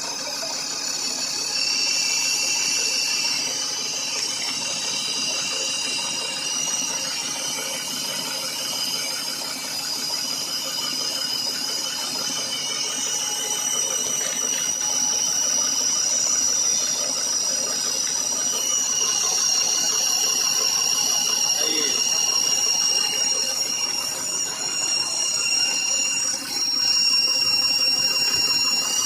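Truck engine running steadily, with the hiss and fast puffing of a leaking exhaust, and a few steady high whines over it.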